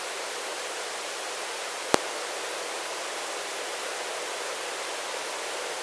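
Steady hiss of the helicopter's headset intercom and radio feed between transmissions, with one sharp click about two seconds in. The rotor and engine are hardly heard through the intercom.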